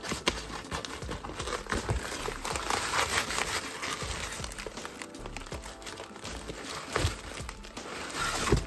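Packing material being crumpled and rustled by hand as a shipping box is cleared out, with a few sharp knocks, the loudest about seven seconds in and just before the end. Background music plays underneath.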